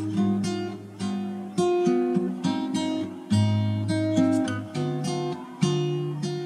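Background music: an acoustic guitar strumming chords, a new strum every second or so.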